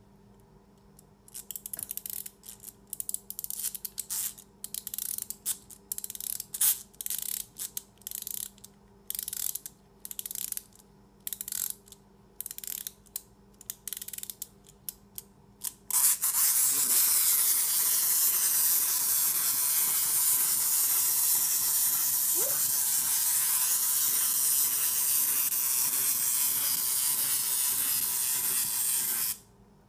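Eeyore wind-up toy being wound: the key turned in short spurts of ratchet clicking for about fifteen seconds. Then the released clockwork gears run with a loud, steady whir that cuts off suddenly near the end as the spring runs down.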